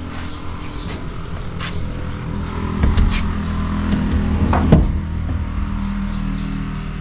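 A motor vehicle's engine running steadily, with scattered light clicks and knocks and one louder knock about four and a half seconds in.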